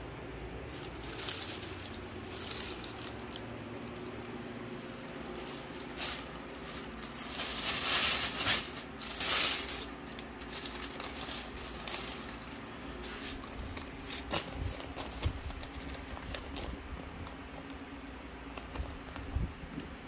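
Thin plastic shopping bag crinkling and rustling as hands open it and rummage inside. The rustling comes in irregular bursts and is loudest for a few seconds around the middle.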